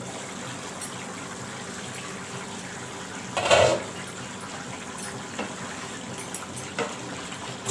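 Pea and paneer curry gravy simmering in an uncovered non-stick kadai on a gas stove: a steady bubbling hiss. A short louder knock about three and a half seconds in, then a couple of light taps of a wooden spatula against the pan as it is stirred.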